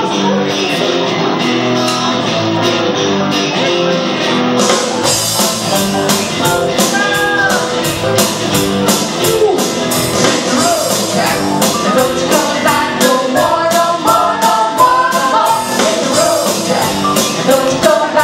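Live rock band playing: electric guitars and bass over a drum kit, with a woman singing. The drums come in with a steady cymbal beat about four and a half seconds in.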